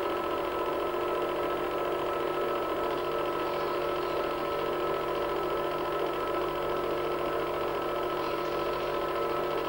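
Film projector running: a steady mechanical hum of its motor and fan, with several held tones that do not change.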